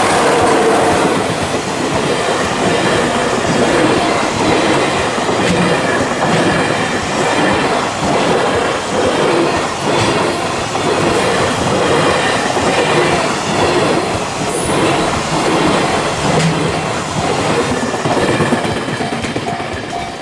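Container freight train hauled by an EF66 electric locomotive passing close by, the wheels of its long string of container wagons clacking over the rail joints in a continuous run of clicks.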